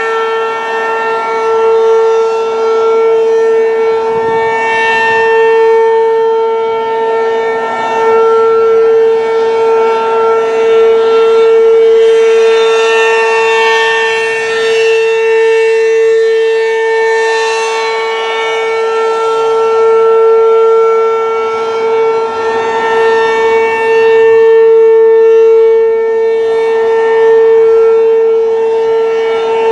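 Werden P-127 outdoor warning siren sounding a loud, steady single-pitch tone that swells and fades in loudness about every four seconds.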